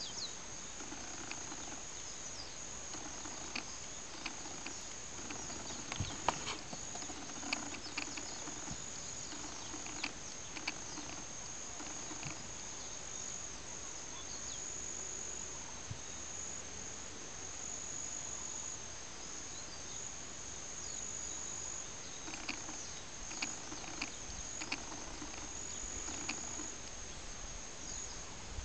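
Steady high-pitched insect chorus that keeps up without a break, with scattered soft clicks over it.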